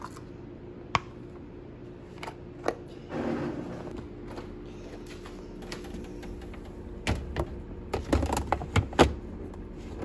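Plastic food-storage container being lidded and handled: a string of sharp plastic clicks and knocks as the lid is pressed on, then a cluster of louder clunks near the end as the container is set onto a refrigerator shelf.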